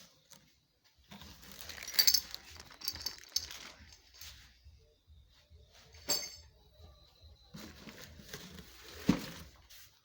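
Hard objects being handled and set down, with clinks and rustling and a few sharp knocks, the loudest about two seconds in and near the end.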